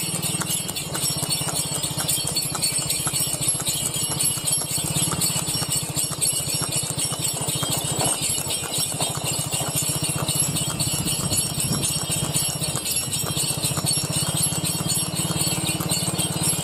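A horse in harness trotting on a paved road, its hooves clip-clopping steadily, while the brass bells on its harness jingle with every stride.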